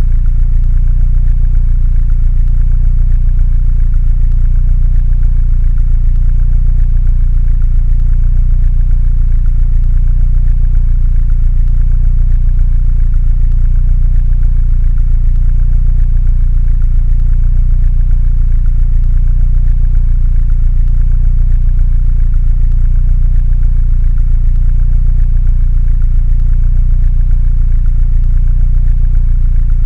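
Mini Cooper engine idling steadily, a low, even running sound that does not change.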